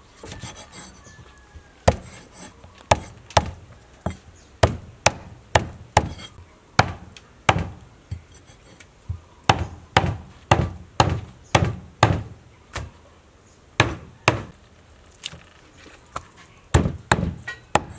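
Cleaver chopping boiled cow nose on a wooden chopping block: a run of sharp chops, about two a second, in bursts with short pauses.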